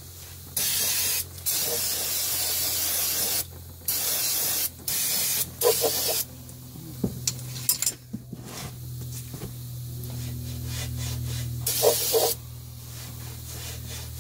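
Aerosol can of brake cleaner spraying onto an oily axle housing and cross member in hissing bursts: several in the first six seconds, one of them about two seconds long, and another near twelve seconds.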